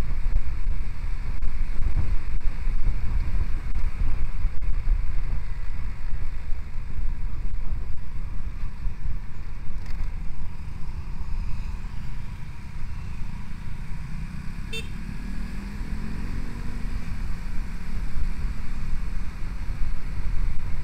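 Riding a motorcycle in traffic: wind buffeting the microphone over engine and road rumble. Around the middle the wind drops a little and the engine's note rises and falls more plainly.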